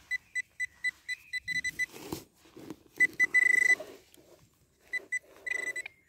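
A handheld metal-detecting pinpointer beeping in quick pulses, about five a second, that run together into a steady tone about three seconds in and again near the end: it is locked onto a metal target in the soil. Between the beeps the soil in the hole is briefly scraped.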